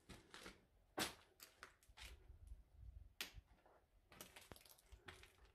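Faint, irregular crunches and clicks of footsteps picking over a rubble-strewn floor, the loudest about a second in.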